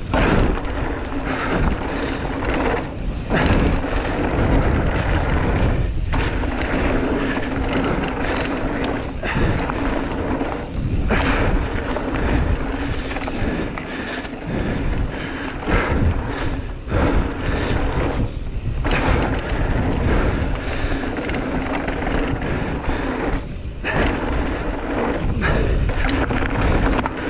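Wind buffeting an action camera's microphone while knobby mountain-bike tyres roll and rattle over a dirt and gravel trail at speed. Several brief lulls break the noise.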